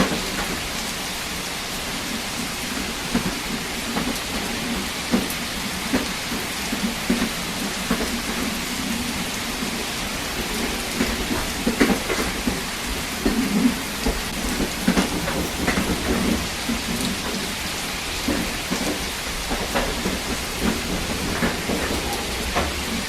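Steady rain, with many sharp drip taps scattered through it over a continuous low rumble.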